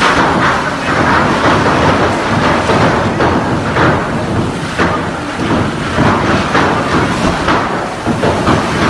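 Fireworks in a burning shophouse fire going off in a rapid, continuous run of pops and crackles, with a louder bang about five seconds in.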